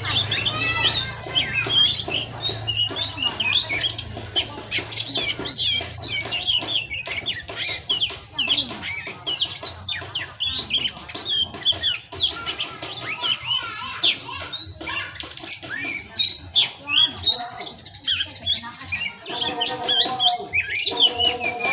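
Oriental magpie-robin (kacer) singing a fast, varied song of chirps and whistles. Near the end, music with steady tones comes in.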